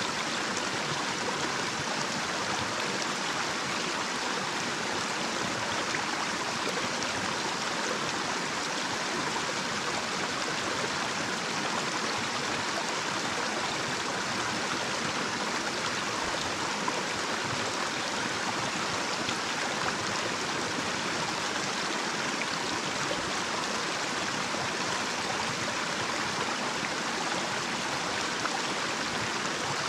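Small, shallow natural stream flowing over a little cascade: a steady, even rush of running water.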